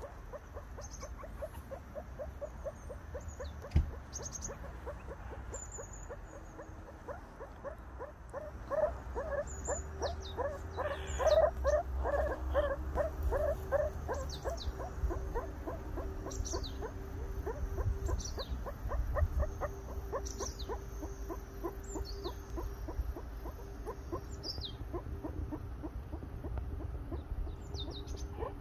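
Meerkats giving rapid, repeated alarm chirps, several a second, growing louder in the middle: the tense calling of a group that has spotted a predator, a leopard cat, nearby.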